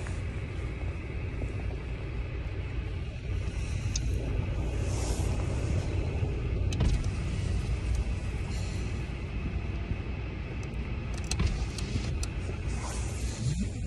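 Steady low rumble of a car heard from inside the cabin. A few brief rustles and clicks come from a padded jacket brushing the phone.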